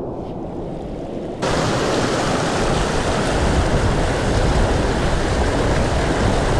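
Mountain stream water rushing over rocks, dull and muffled at first, then suddenly louder and fuller about a second and a half in.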